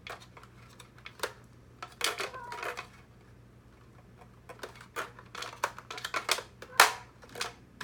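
Plastic robot-kit parts being handled and pressed together: scattered clicks and knocks, busiest in the first three seconds and the second half, with the sharpest click about seven seconds in.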